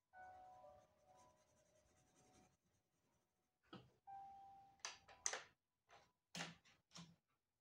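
A Derwent Coloursoft coloured pencil scratching across paper in a run of short, quick strokes, starting a little past halfway, with faint background music before them.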